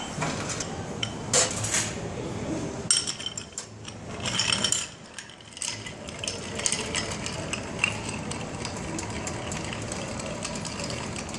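Ice cubes clattering into a glass, then a long bar spoon stirring the ice in the glass, a steady run of small clinks.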